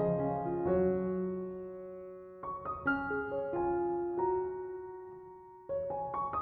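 Soft piano music: chords struck every few seconds, each ringing out and fading, with a few single notes between them.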